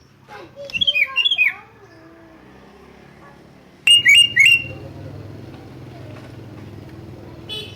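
Sooty-headed bulbul (kutilang) calling: a short run of warbling notes about a second in, then three loud, sharp notes about four seconds in. A steady low hum runs underneath.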